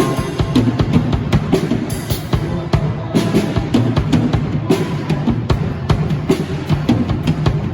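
A live band playing an instrumental stretch of a gospel praise song, driven by a drum kit with a steady beat of bass drum and snare hits over bass and other instruments.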